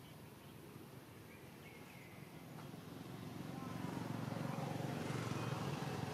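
Low engine rumble of a motor vehicle, growing louder from about two and a half seconds in and then holding steady. A faint short bird chirp comes about two seconds in.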